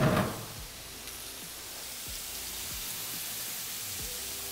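Kitchen tap water splashing into a stainless-steel sink, shut off just after the start. Then a steady sizzle of chicken frying in a pan on the stove.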